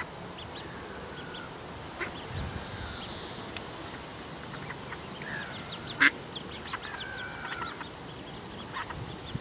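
A duckling peeping over and over: many short high cheeps and a few drawn-out falling calls. Several sharp clicks cut in, the loudest about six seconds in.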